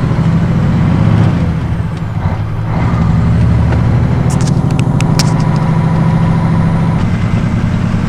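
Diesel truck engine running steadily on the road, heard from inside the cab. It has a freshly replaced rocker arm shaft and newly set valve clearances, and runs smoothly. A few sharp clicks come about halfway through.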